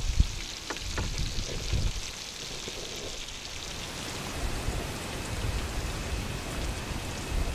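Fish frying in oil in a pan, a steady rain-like sizzle with a few faint crackles in the first second.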